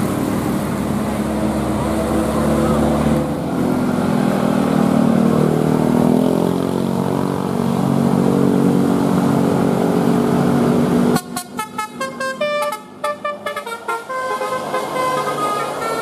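Heavy traffic and low bus engine noise, then about eleven seconds in a multi-tone 'telolet' bus horn plays a quick tune of short notes that step up and down in pitch.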